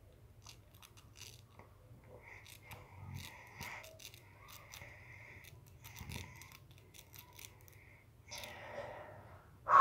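Faint, irregular scratching and ticking of a pointed tool scraping into a thin disc of honeycomb sugar candy (dalgona) to carve out its shape.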